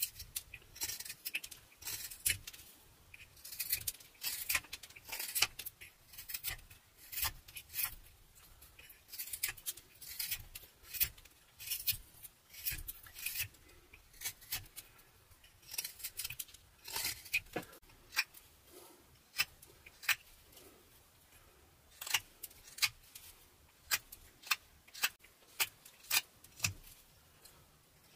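Northbay Forge carving knife slicing shavings from a butternut block: a long series of short, crisp cuts, one to three a second, each a quick scraping slice through the wood.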